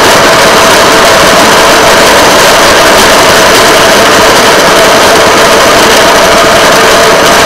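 Engine of a railroad track motorcar (speeder) running steadily as the car travels along the rails: a constant loud drone with a steady hum on top.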